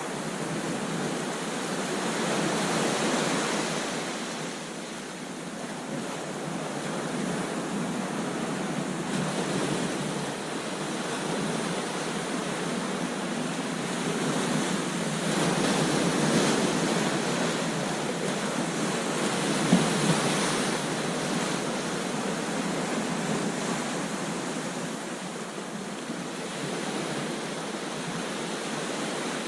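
Ocean surf breaking and washing up a beach: a steady rushing hiss that swells and fades as each wave comes in, with bigger swells early on, around the middle, and about two thirds of the way through.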